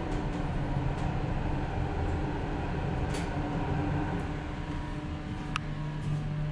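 Steady rumble inside a Schindler MT/300A hydraulic elevator cab as the car travels down, with a steady low hum that grows stronger about five seconds in. A few sharp clicks sound near the end.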